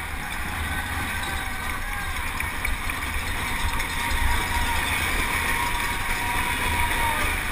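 Wind buffeting the microphone of a helmet camera on a penny-farthing ridden at racing speed, a gusty low rumble, with the crowd along the barriers cheering and talking behind it.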